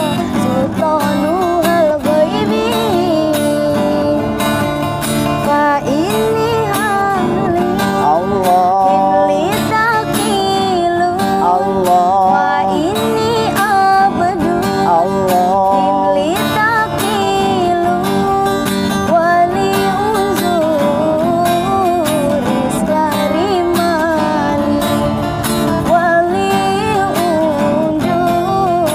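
A woman singing a sholawat, an Islamic devotional song, in a melodic voice with ornamented glides, accompanied by a strummed acoustic guitar.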